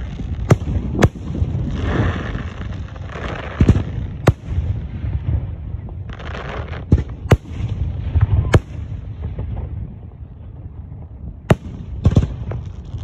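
Aerial fireworks bursting: about nine sharp bangs at uneven intervals, with stretches of crackling hiss between them and a steady low rumble underneath.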